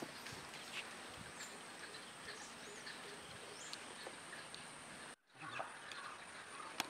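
Faint outdoor ambience, a steady hiss with scattered small bird chirps, briefly cut off about five seconds in before it resumes.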